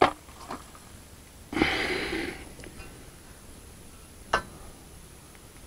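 Sparse clicks and knocks of a man working on an aluminium stepladder while fitting a galvanized steel purlin pipe to a greenhouse hoop. A short noisy rush comes about a second and a half in, and a single sharp click a little after four seconds in is the loudest sound.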